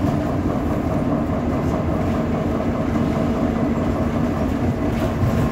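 City bus engine and drivetrain running while the bus drives, with road rumble, heard from inside the passenger cabin as a steady low hum.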